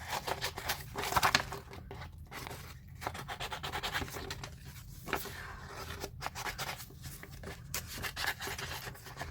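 Scissors cutting through paper, a run of irregular rasping snips.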